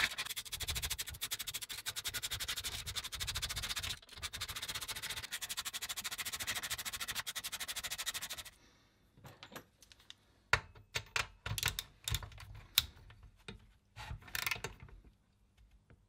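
Rapid, even clicking for about eight seconds, then scattered clicks and knocks of hand tools working on a small Honda WX10 four-stroke engine.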